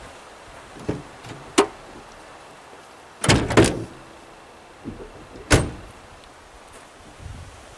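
Pickup truck door opened and shut: a light click, then a loud double clunk about three seconds in as the door opens, and a single sharp bang about five and a half seconds in as it shuts.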